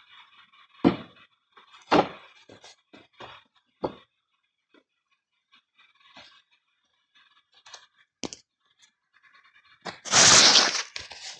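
Handling noise: a few dull thumps and light knocks as an object is set down and someone moves around on the platform. Near the end comes a louder scraping rustle of about a second as the camera is handled.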